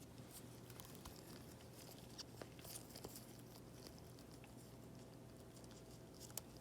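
Near silence with faint, scattered clicks and light scratching of small hand tools working on an iPad's home button cable; the sharpest click comes near the end.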